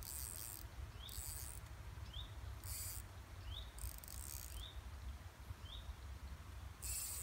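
Short, high, buzzing bursts about every second, typical of an insect singing, with a short rising call about once a second from a small bird, over a steady low rumble of wind on the microphone.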